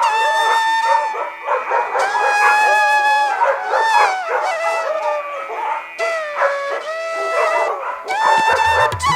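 Dog yipping and howling, short yelps mixed with several held, drawn-out calls, over background music.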